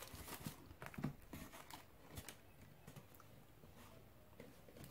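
Faint handling noise of a cardboard retail box being lifted out of a shipping carton and held: a few light taps and rustles in the first two seconds.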